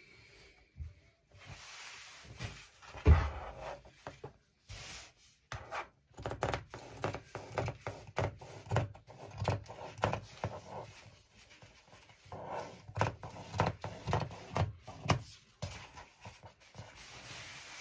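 Fabric being cut with scissors and handled on a cutting mat: repeated snips and rustling of the cloth, with one sharp thump about three seconds in.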